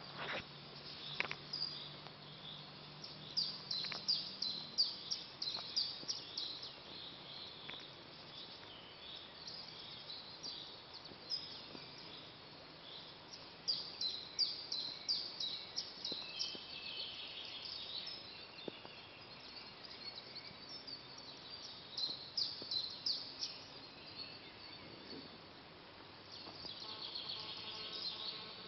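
Songbirds singing in an early-morning chorus: runs of quick, high, falling chirps that come in several bursts over a faint steady background hiss.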